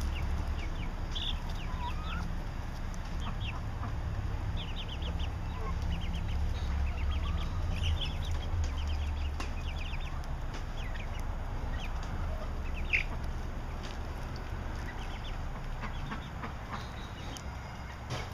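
Young five-week-old brown leghorn and mixed-breed chickens cheeping in quick clusters of short, high chirps, with one louder call about thirteen seconds in, over a low rumble.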